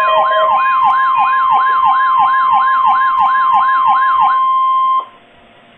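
Weather radio alert tones: a steady tone near 1 kHz under a siren-like tone that sweeps up and down about three and a half times a second. The sweep stops about four seconds in, and the steady tone cuts off suddenly a second later, leaving faint radio hiss.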